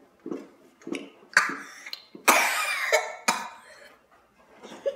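A girl coughing several times in short bursts, the longest and loudest cough a little past two seconds in, reacting to the burning heat of wasabi she has just eaten.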